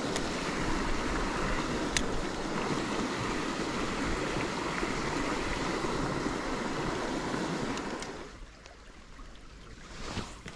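Rushing water of a small stream pouring through a cascade and riffle, a steady rush with a couple of sharp clicks in the first two seconds. About eight seconds in it drops away to a much quieter flow.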